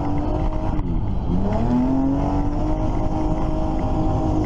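Car engine running at highway speed, heard from inside the cabin. Its note dips about a second in and climbs back up, then holds steady.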